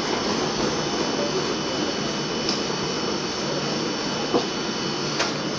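Steady loud drone of commercial kitchen machinery, like fans, with two soft slaps of hands on dough on a floured bench late on.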